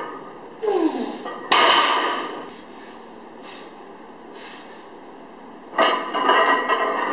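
A loaded deadlift barbell with its plates comes down onto the lifting platform with a sudden crash about a second and a half in, ringing out over about a second. Quiet gym room sound follows, and a louder stretch of noise starts near the end.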